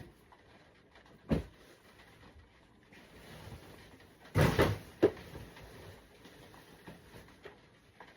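A few sharp household knocks and clunks: one about a second in, then a louder cluster of clattering knocks around four and a half seconds and a last knock just after.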